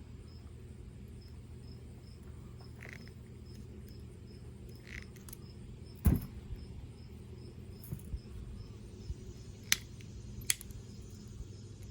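Sharp metallic clicks from a multitool's pliers and wire cutters being worked on wire: one louder snap about six seconds in, then smaller clicks, with two sharp ones near the end. Under them run a steady low hum and a faint high chirping about twice a second.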